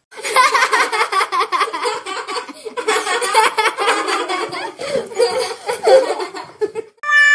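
A person laughing hard and high-pitched in rapid, bouncing bursts, most likely a dubbed laugh sound effect. It stops just before the end, and a steady pitched electronic tone starts.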